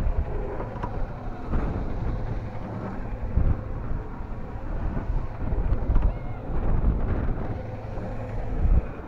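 Wind buffeting the microphone in irregular gusts, a low rumble from the rush of air as the amusement-ride airplane car circles.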